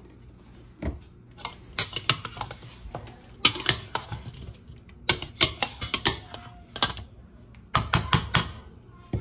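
A spoon and then a spatula clacking and scraping against a plastic bowl as chicken wings are tossed in barbecue sauce, in several quick runs of clicks and knocks.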